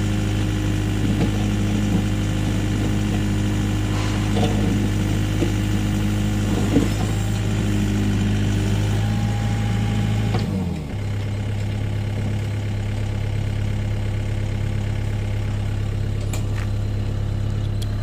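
LiuGong hydraulic excavator's diesel engine running steadily while the boom and bucket draw in through the soil. About ten seconds in the engine note drops and settles lower, with a few light ticks and clicks over it.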